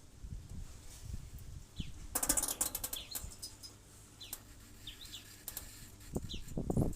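Birds chirping in short calls, with a brief rapid fluttering rattle a little after two seconds in and a few low thumps near the end.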